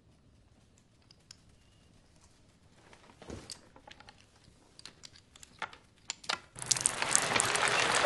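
Near silence, then scattered light clicks and taps of pieces on a wooden game board. About six and a half seconds in, a sudden steady downpour of rain begins and builds.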